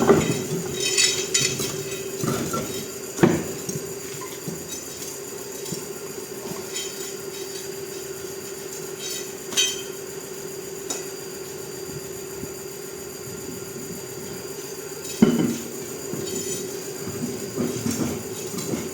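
Scattered metallic clinks and knocks, a few sharp ones standing out, the loudest about fifteen seconds in, over a steady droning hum.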